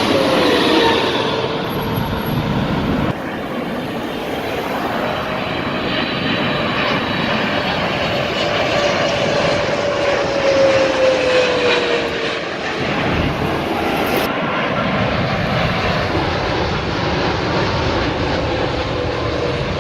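Airliner engines running loud as a plane passes close by, a steady rushing noise with a whine that slides down in pitch just at the start and again about ten to twelve seconds in.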